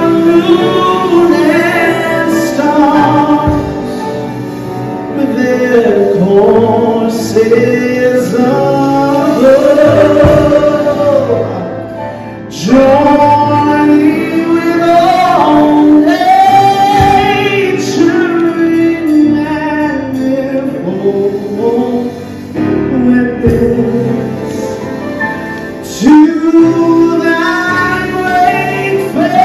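A man singing a slow gospel song into a handheld microphone, with long held notes that slide between pitches.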